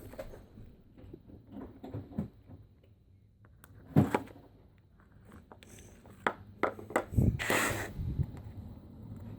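Slime being squeezed and worked by hand: irregular squelches and pops, a sharp one about four seconds in and a quick run of them a little past halfway.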